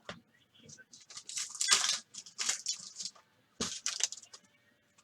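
Trading card pack and cards handled by hand: short crinkling, rustling bursts of foil wrapper and card stock, with small clicks between them, about three main bursts.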